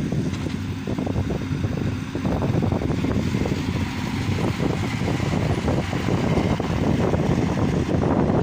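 Diesel engine of a piece of heavy construction equipment running steadily, a little quieter over the first couple of seconds and fuller after about five seconds.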